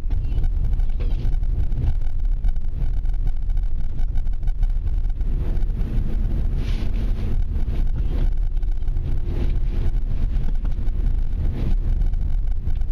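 Car driving slowly, heard from inside the cabin: a steady low rumble of engine and tyres on a concrete lane.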